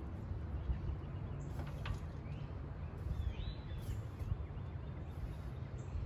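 Birds chirping a few times over a steady low rumble.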